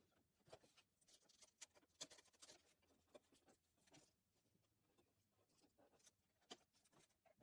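Near silence with the sewing machine stopped: faint rustling and scattered small clicks of hands turning a fleece strap under the presser foot.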